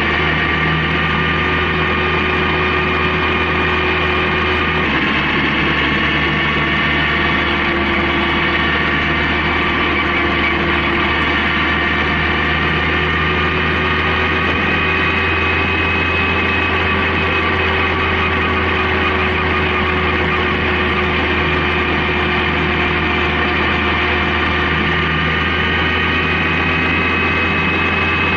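Honda CB750K's inline-four engine running at a steady cruising speed, a constant hum with a slight change in pitch about five seconds in, mixed with road and wind noise.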